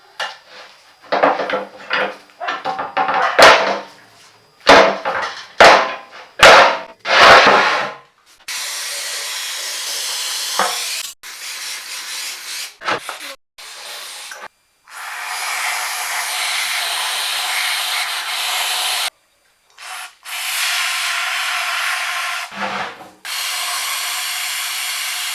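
Rust being scraped and sanded off a cast-iron vise: a quick run of separate rough strokes, then long stretches of steady abrasive rubbing broken by short pauses.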